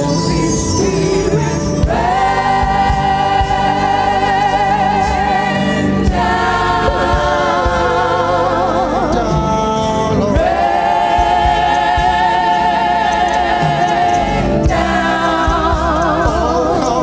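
Gospel choir singing long held notes with vibrato, in phrases that change about every four seconds, over a steady low instrumental accompaniment.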